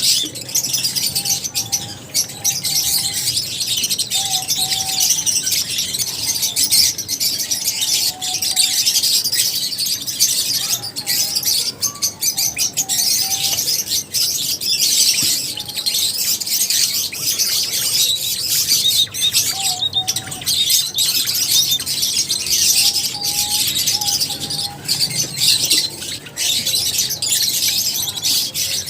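A colony of lovebirds chattering together: a dense, unbroken mass of high-pitched chirps and calls, with short lower notes cropping up every few seconds.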